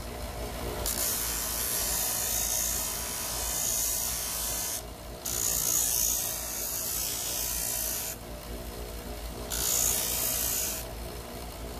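Steel of an old reciprocating-saw blade being worked against an abrasive in three long passes, each a loud, high rasping hiss that starts and stops abruptly.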